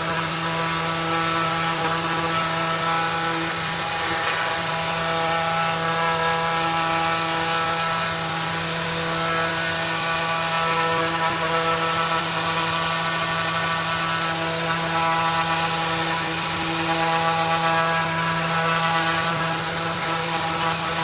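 Maxxt electric orbital sander with a 5-inch pad running steadily while sanding a hardwood board at 150 grit: an even motor hum and whine over the scratch of the sandpaper.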